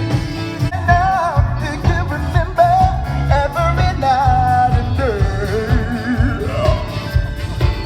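Live pop-rock band playing through a PA with a singer's vibrato-laden vocal over drums and bass.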